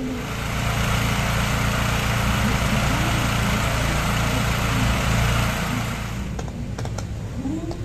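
Pyrotechnic fountains spraying sparks and flame with a loud steady rushing hiss over a low rumble. The hiss cuts off about six seconds in, leaving a few sharp crackles and pops.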